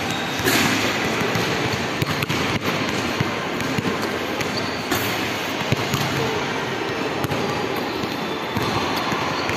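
Basketball bouncing on a hard tiled floor, sharp irregular thuds over a steady background hubbub of a busy indoor mall.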